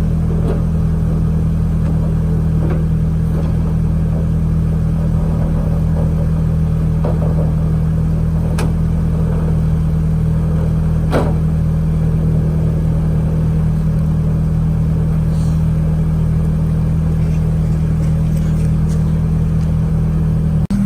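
A car engine idling steadily with a low, unchanging hum, with two sharp clicks from work on the car about eight and eleven seconds in.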